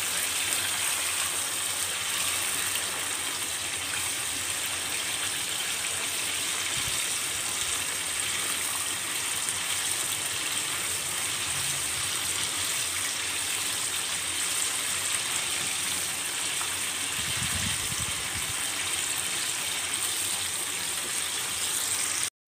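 Chicken pieces deep-frying in hot oil over high heat: a steady, even sizzle and bubbling as the pieces brown.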